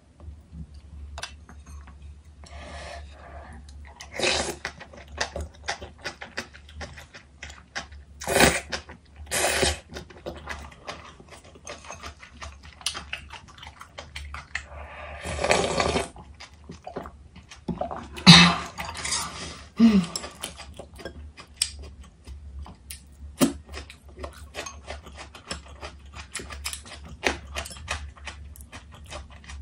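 Close-miked eating sounds: chewing and crunching of kimchi and raw onion, with chopstick and spoon clicks against the dishes. About halfway through there is a longer slurp as gomtang broth is drunk straight from the bowl.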